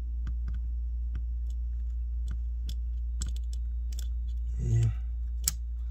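Irregular small sharp clicks and ticks of a plastic prying tool working an iPad Mini's stuck digitizer loose from the frame, with a louder click near the end, over a steady low hum. A short murmured voice sounds about three-quarters of the way through.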